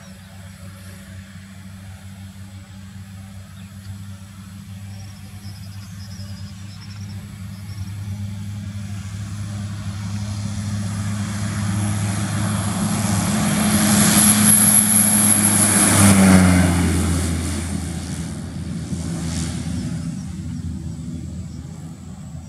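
Cessna 208B Grand Caravan EX's Pratt & Whitney PT6A turboprop engine and propeller at takeoff power, a droning note with a high turbine whine that grows steadily louder as the plane rolls and lifts off. It passes close about sixteen seconds in with a sharp drop in pitch, then fades as it climbs away.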